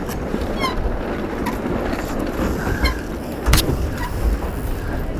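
Wind buffeting the microphone and water rushing and splashing along the hull of a small Puck-class sailboat under way. A few short high squeaks and a single knock about three and a half seconds in.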